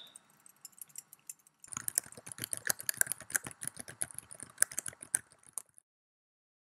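Typing on a computer keyboard: a few scattered key clicks, then about four seconds of rapid, steady typing that stops abruptly.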